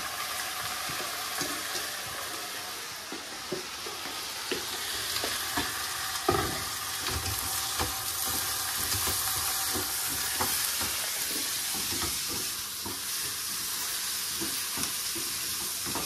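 Rice being toasted in sizzling butter in a pot for pilaf, stirred with a spoon that scrapes and knocks irregularly against the pot under a steady hiss. One knock about six seconds in is louder than the rest.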